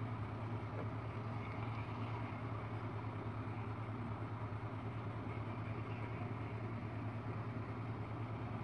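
Steady low mechanical hum with a fine fast flutter in it, unchanging throughout.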